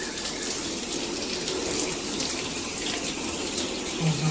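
Water running through a handheld filtered shower head, a steady hiss. The head is making what the user calls a really loud noise, and keeps leaking even with its stop button pressed.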